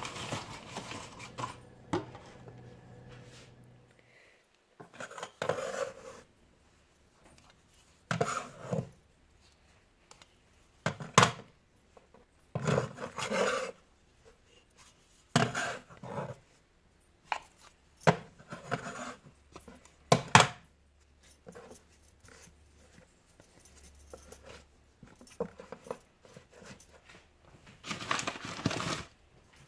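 Kitchen handling sounds: short bouts of scraping and clatter every few seconds, some with a sharp knock, like utensils or dough being worked on a wooden board.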